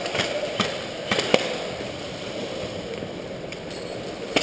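A handful of short, sharp clicks and knocks, four in the first second and a half and one more near the end, over a steady background hiss.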